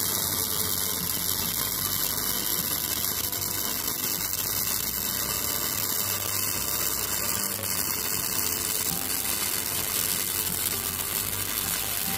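Gasless flux-cored MIG welding arc from a Weldcom V2000 welder set to maximum current, burning steadily on thick steel. It cuts off suddenly at the end as the weld is finished.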